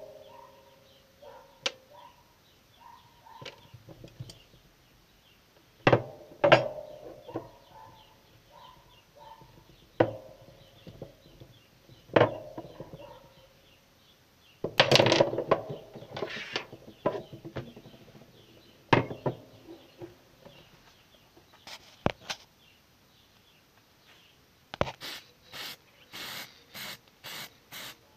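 Steel parts of old tin snips (blades, pivot bolt and nut) handled and set down on a wooden table: irregular clinks and knocks, some with a short metallic ring. Near the end, a quick even series of short hissing bursts, two or three a second, from an aerosol spray paint can.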